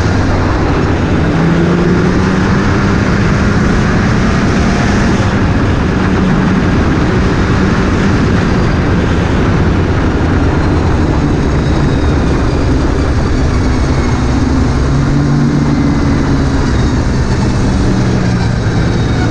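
Snowmobile engine running at trail speed, heard from on board the sled, its pitch drifting slightly up and down as the throttle varies, over a constant rush of wind and track noise.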